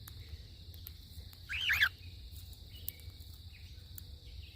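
A cockatiel gives one loud contact call about a second and a half in: a two-part whistle that rises and falls. It is calling for its missing flockmate. A few faint short chirps follow.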